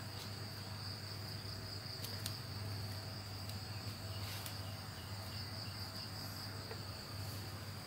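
Insects chirring steadily at a high pitch in the background, over a low steady hum, with a few faint clicks.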